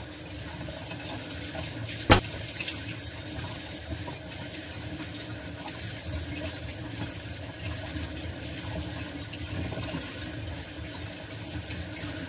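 Water running from a kitchen tap into the sink while raw chicken pieces are rinsed by hand, splashing steadily. One sharp knock about two seconds in.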